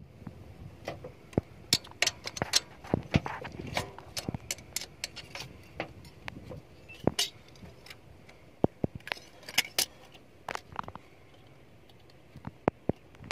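Metal hand tools and feeler gauge blades clicking and clinking irregularly against the engine's rocker arm and valve adjuster during a valve clearance adjustment. The clinks come thick in the first few seconds, then sparser.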